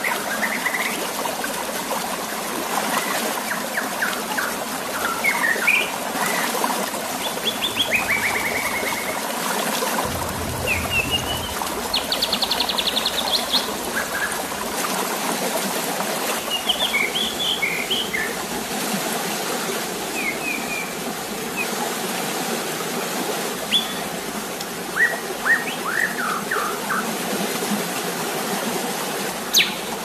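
Steady rush of running water and splashing in a white-rumped shama's cage bath. Short bird chirps and calls are scattered over it, including a rapid trill about twelve seconds in and a quick run of calls near the end.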